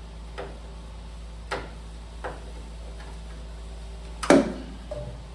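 Scattered knocks and clicks of hand tools working sheet metal as a roll pan is forced into place, with one loud bang about four seconds in, over a steady low hum.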